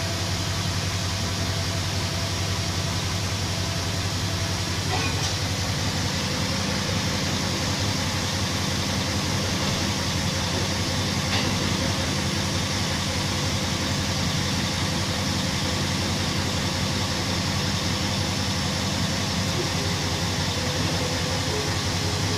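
Steady drone of heavy open-cast mining machinery running close by: a low engine hum under a constant rushing noise, unchanging throughout.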